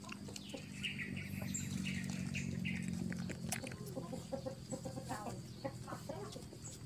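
A chicken clucking in a short run of calls during the first three seconds, over a low steady hum. Later come small scattered clicks and smacks of puppies suckling at their mother's teats.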